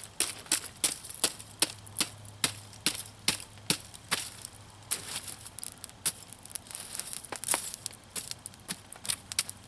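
Wood campfire crackling and popping, with irregular sharp snaps several times a second.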